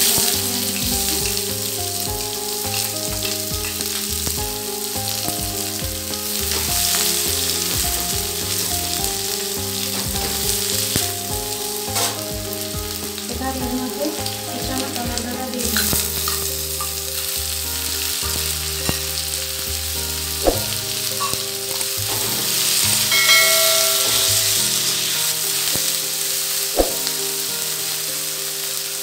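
Chopped onion, and later tomato, frying in hot mustard oil in a steel kadai: a steady sizzle, with a spatula stirring and clinking sharply against the pan a few times.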